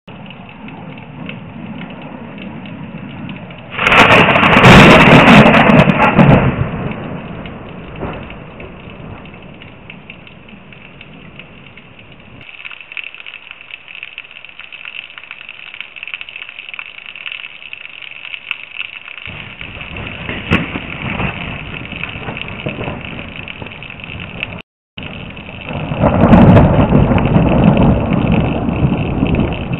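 Thunder from two lightning strikes over a steady hiss of rain, heard through a security camera's microphone. The first is a sudden loud crack about four seconds in that rumbles off over a couple of seconds. The second is a loud rumble near the end that lasts about three seconds.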